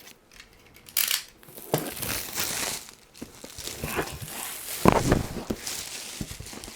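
Plastic shrink-wrap being torn and peeled off a board-game box and crumpled: irregular crinkling and tearing, with the loudest crackle about five seconds in.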